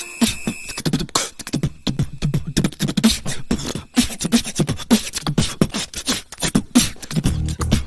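Beatboxing: a voice alone making a quick run of short thumps and clicks in a dance rhythm, with no backing music. Near the end the band comes back in.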